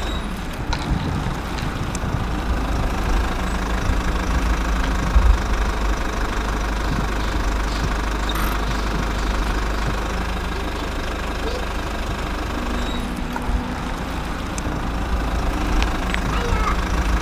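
A steady low mechanical hum runs throughout, with a few short light knocks of plastic toy cars being handled and set down on a foam mat.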